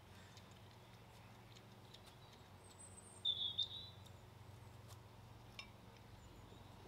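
A short, high bird chirp about three seconds in, over a faint steady low hum.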